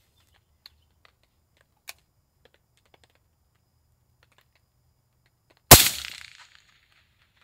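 A suppressed .308 PSA PA-10 (AR-10 pattern) semi-automatic rifle fires a single shot near the end, its report trailing off in echo over about half a second. A few faint clicks come before it.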